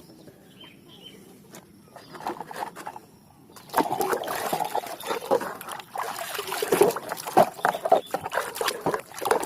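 Water splashing and trickling, with many small knocks, as a toy bulldozer is washed by hand, starting about four seconds in.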